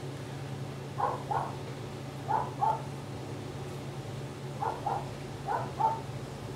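A dog barking in quick pairs of short barks, four pairs in all, over a steady low hum.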